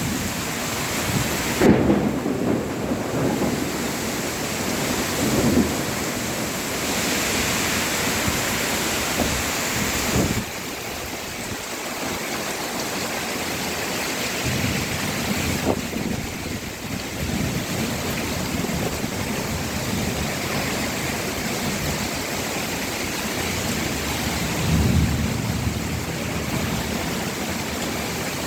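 Heavy rain falling steadily, with low rumbles of thunder about 2 seconds in, around 5 seconds and again near 25 seconds. The sound of the rain changes abruptly about 10 seconds in and again near 16 seconds.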